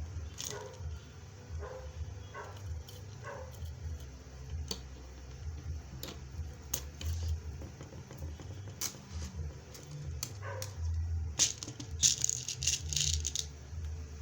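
Scattered sharp clicks and knocks from a hand-operated rivet machine setting beads onto a scarf, with small metal rivets rattling and jangling for about two seconds near the end.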